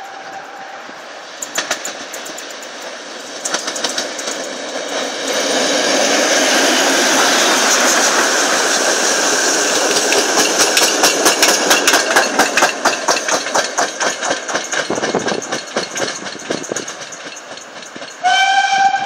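Steam locomotive hauling passenger carriages passing close by. Its whistle dies away about a second in, then the rush of the engine builds and is loudest from about six seconds in. A fast, even run of wheel clicks follows as the carriages go by and fades away. Near the end the steam whistle sounds again as one long steady tone.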